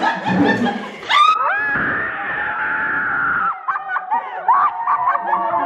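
Party guests screaming and shrieking with laughter: one long high scream from about a second in, held for about two seconds, then a run of short excited shrieks and laughs.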